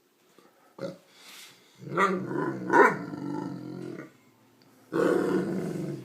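Seven-month-old Great Dane yawning, a long yawn with voice in it that rises and falls in pitch. About five seconds in comes a single burp with a sudden start, lasting about a second.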